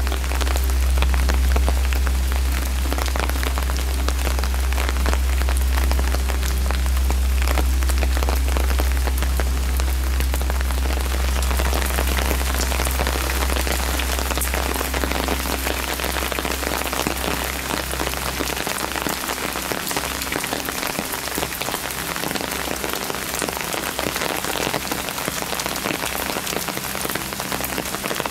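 Rain falling on stone steps and paving: a dense patter of drops over a steady hiss, growing brighter a little before halfway. A low rumble underneath stops about two-thirds of the way in.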